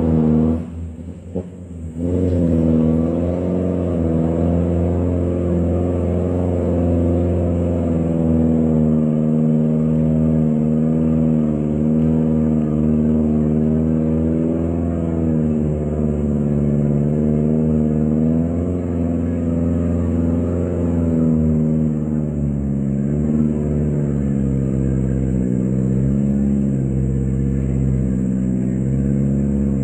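Diesel engine of a dump truck loaded with oil palm fruit bunches, labouring up a steep dirt track under heavy load. Its pitch rises and falls slightly as it pulls, and the sound drops away briefly about a second in.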